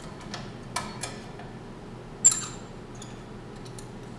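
A steel C-clamp knocking and clinking against the drill press's metal table as it is fitted over a block of wood. A few light knocks come first, then one sharp metallic clink with a short ring about two seconds in.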